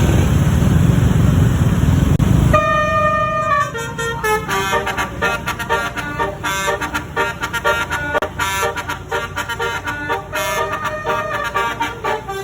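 A loud rushing noise for about the first two and a half seconds, then a bus's 36-note basuri (telolet) musical air horn sounds one long note and runs into a quick tune of short stepping notes.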